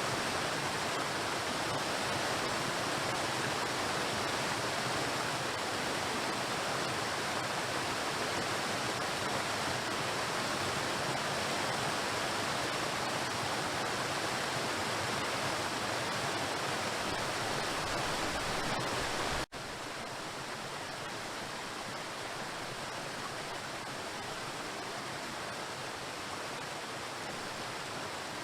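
Waterfall rushing in a steady, dense roar of falling water. About two-thirds of the way through it cuts out for an instant and comes back slightly quieter, with less low rumble.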